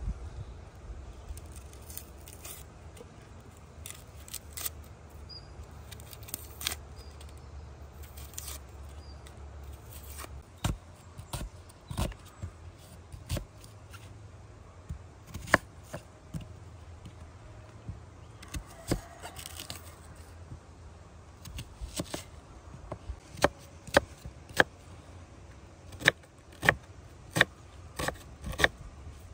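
Hand work at a food-preparation spot: scattered sharp clicks, taps and scrapes of utensils being handled, with a low hum for the first ten seconds or so. Near the end the taps come in a quicker, fairly regular run, like knife strokes.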